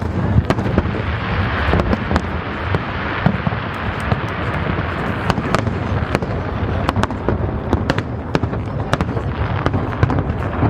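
Aerial fireworks going off continuously: a dense, steady rumble of bursts with many sharp cracks and pops scattered irregularly throughout.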